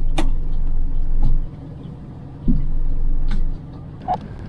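Low rumble aboard a small pilothouse boat moving slowly under power: the boat's motor running, mixed with wind noise. It is loud for the first second and a half, drops back, swells again for about a second, then eases off.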